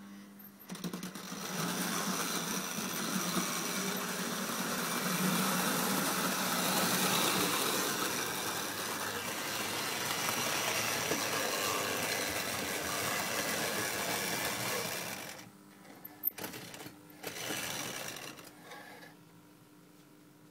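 Hornby Dublo 'Duchess of Atholl' OO-gauge model locomotive running on the track: the steady whirr of its electric motor and the rattle of wheels on the rails, starting about a second in. About fifteen seconds in it stops, as it draws into the platform, followed by a few clicks and a short burst of running near the end.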